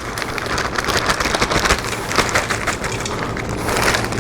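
Frozen vegetable pieces poured from a bag into a pressure cooker pot: a dense, continuous clatter of many small hard pieces landing.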